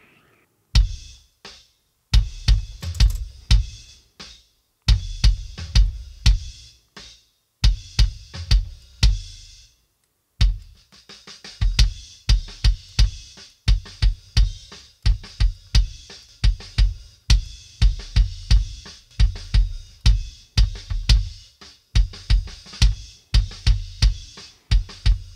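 Rock kick drum track played back: a steady pattern of deep kick hits with some snare and cymbal spill. It plays first with its long low-end ring, then, after a short break about ten seconds in, with a transient designer pulling back the sustain so the low end sounds shorter and tighter.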